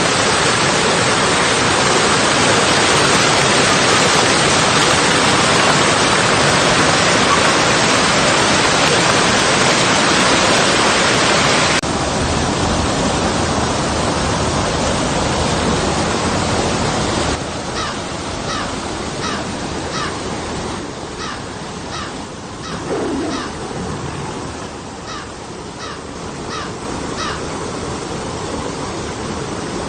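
Running river water rushing over rocks and small falls, a steady loud rush that drops abruptly in level about twelve seconds in and again a few seconds later. Over the quieter stretch a bird calls in a run of short, repeated notes.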